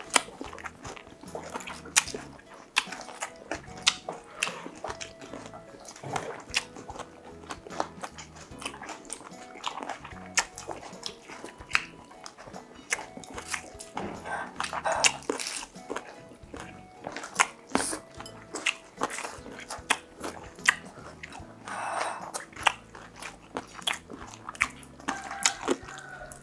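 A person eating crunchy food close to the microphone: irregular crisp bites and chewing crunches throughout, with soft background music underneath.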